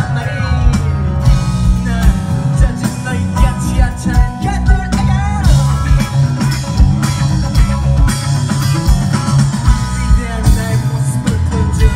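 Live rock band playing: a male singer over strummed acoustic guitar, drums and bass.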